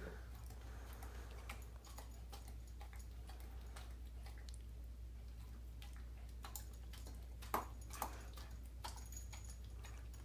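Dog smacking its mouth and clicking its tongue, working at peanut butter stuck to the roof of its mouth: a run of irregular wet clicks, with two louder smacks about two-thirds of the way through.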